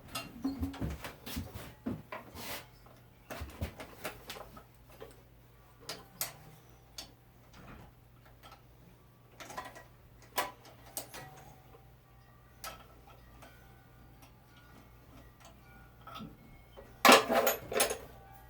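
Hand tools clicking and clanking on metal while a replacement starter is worked onto a lawn tractor's opposed-twin engine, in irregular single knocks with a louder rattling clatter near the end.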